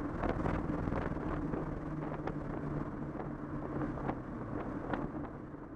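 Street-ported, single-turbo 13B rotary engine of a Mazda RX-7 FD heard from inside the cabin, running at light load as the car drives on. It is a steady drone with scattered sharp ticks, growing gradually quieter.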